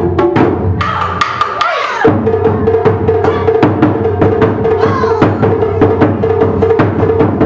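Taiko drums struck in a fast, steady rhythm, each stroke sharp and clear, over a steady held tone. About one and a half seconds in a falling sweep marks a change in the music before the drumming carries on.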